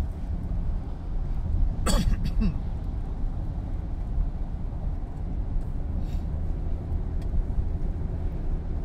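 Steady road noise inside a car cabin: tyres on wet highway pavement and the engine's low hum at cruising speed. A brief sharp sound stands out about two seconds in.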